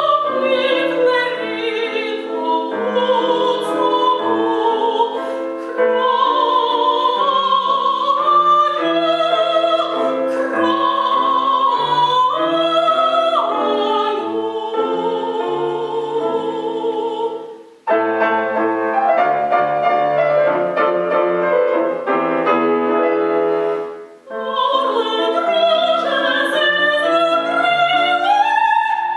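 Soprano singing an opera aria with wide vibrato over piano accompaniment. The phrases break off briefly about 18 seconds in and again about 24 seconds in.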